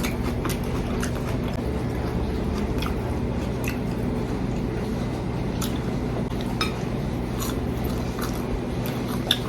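People chewing and eating, with scattered small clicks and taps of utensils, over a steady low hum.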